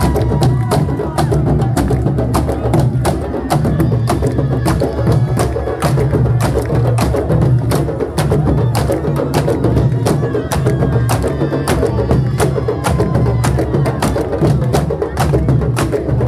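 Candombe drums (the low piano, chico and repique) played by a marching drum troupe in a dense, steady rhythm, with many sharp stick clicks on the wooden drum shells over deep booming drum tones.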